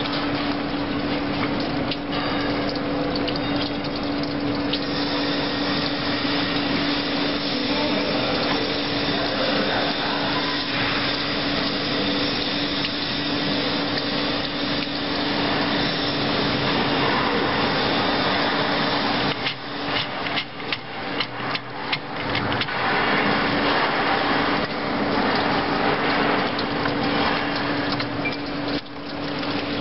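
Machinery running with a steady hum and hiss. A quick run of sharp metallic clicks comes about twenty seconds in, with a few more near the end.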